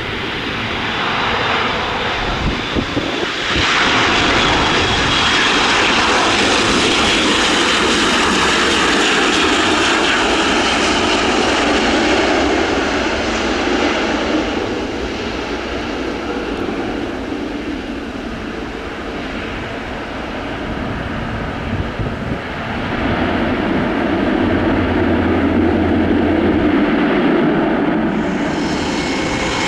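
Airbus A400M Atlas's four turboprop engines with eight-bladed propellers, as the transport aircraft comes in to land and rolls out along the runway. The engine sound swells about four seconds in, eases off in the middle, and builds again over the last several seconds.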